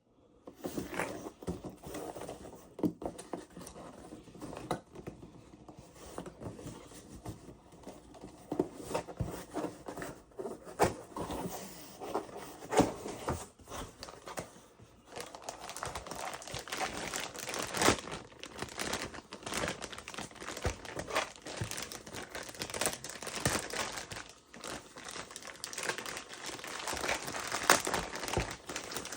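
Packaging being handled during an unboxing: irregular crinkling and rustling with scattered sharp clicks and knocks.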